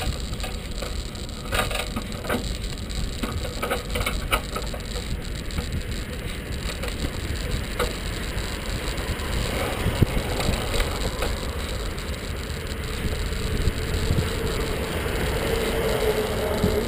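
Bicycle riding on a paved path: a steady low rumble of wind and road vibration, with rattling clicks from the bike and its rear carrier in the first few seconds. A faint steady whine comes in during the second half and grows louder near the end.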